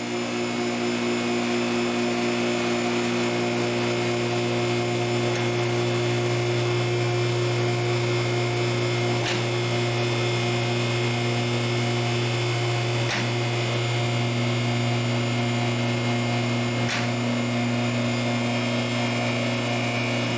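Electric-hydraulic pump motor of a two-post vehicle lift running steadily as it raises a car. It makes a constant low hum with a few faint ticks.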